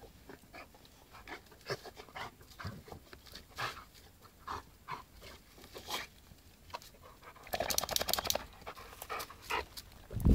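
Dog panting as it rolls and rubs its back in dry leaf litter, the leaves crackling and scratching in short irregular bursts. A dense run of rustling comes about eight seconds in, and a sharp knock right at the end.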